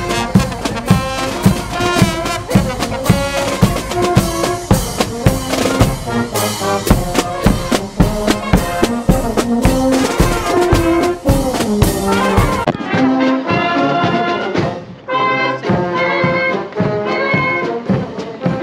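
Brass band music, trumpets and trombones over a steady drum beat.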